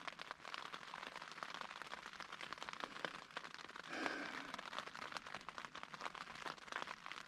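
Light rain pattering on a tent, many small drop taps close together, with a brief soft sound about four seconds in.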